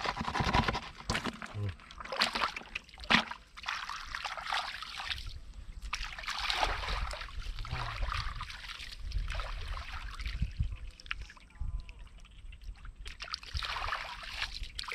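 Shallow muddy water splashing and sloshing in irregular bursts, from hands working through mud to feel for fish.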